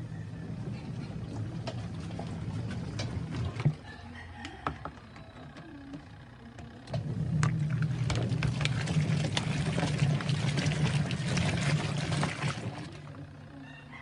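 Sharp twin-tub washing machine's wash motor running and churning a load of clothes in the tub, with a low hum and swishing. It runs for about four seconds, eases off for about three, runs again louder for about six seconds and stops near the end, as the agitator turns one way and then the other.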